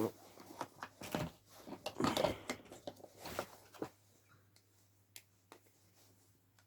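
Knocks and rattles of things being handled, bunched together over the first four seconds, then a few separate sharp clicks.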